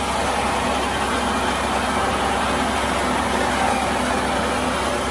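Tractor-driven paddy thresher running steadily, powered by a Mahindra 475 DI diesel tractor, as threshed rice grain pours from its outlet chute.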